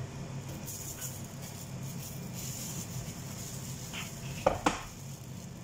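Kitchen handling sounds as chicken and vegetable pieces are pushed onto a wooden skewer over a glass bowl: two sharp clicks close together about four and a half seconds in, over a steady low hum.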